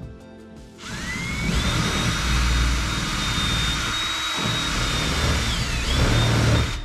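Power drill spinning up with a quickly rising whine about a second in, then running steadily as it bores a quarter-inch hole; its pitch sags briefly under load near the end before it stops.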